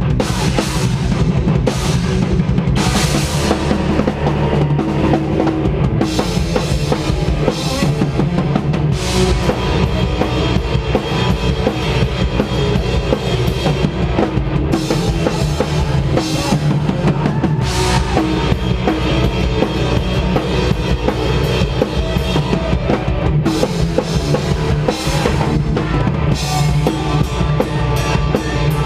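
A heavy post-hardcore band playing live, loud and dense, with the drum kit to the fore: bass drum, snare and repeated cymbal crashes.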